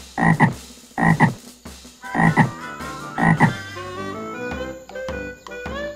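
Frog croaking four times, each a double croak, about a second apart. Music starts near the end.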